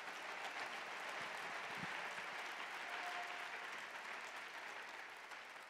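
A congregation applauding: steady clapping that slowly dies away toward the end.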